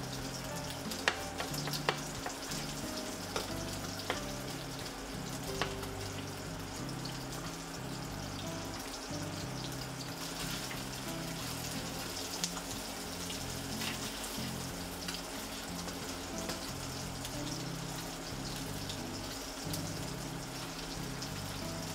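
Sliced garlic frying in olive oil around a whole threadfin bream in a frying pan: a steady sizzle, with a few sharp clicks in the first six seconds.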